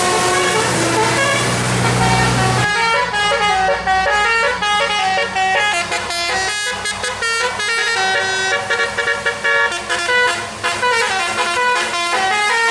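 Bus 'telolet' musical air horn playing a fast tune of short stepped notes. A bus engine runs loudly under it for the first two and a half seconds or so, then drops away while the horn tune continues.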